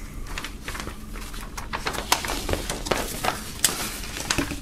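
A folded paper poster being unfolded and handled, rustling and crinkling in many small irregular crackles.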